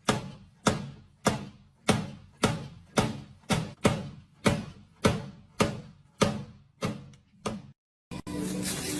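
A steady series of sharp percussive thuds, about one every 0.6 seconds, each ringing off before the next. They stop after about seven and a half seconds, and music starts a moment later.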